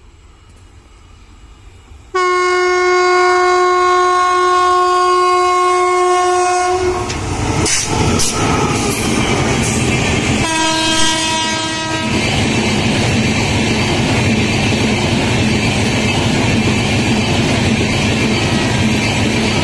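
Amrit Bharat Express passenger train passing at speed. The electric locomotive sounds its horn twice, a long blast of about four and a half seconds and then a shorter one, with a quick run of clicks from the wheels between them. After that the coaches rush past with a steady loud rolling noise.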